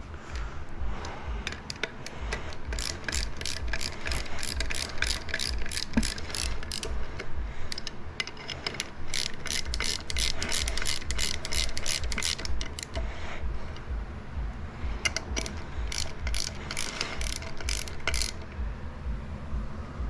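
Hand ratchet wrench clicking in fast runs as the rear sprocket bolts on a 2022 Honda Grom are tightened in a star pattern. There are two long spells of clicking, with a short pause a little past the middle.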